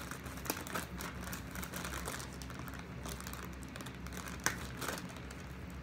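A small cube being wiped down by hand with a wet wipe: scratchy rustling and scattered small clicks, with one sharper click about four and a half seconds in.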